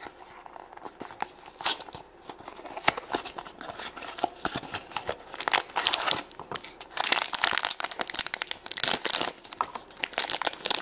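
A cardboard blind box being handled and opened, then a crinkly foil blind bag crumpled and torn open, with crackling that gets denser and louder about seven seconds in.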